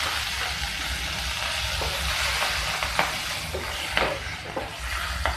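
Curry leaves and sliced green chillies sizzling hard as they hit hot oil with mustard seeds, the water in the fresh leaves flashing to steam. The sizzle is loudest at first and eases a little, with a few sharp clicks through it.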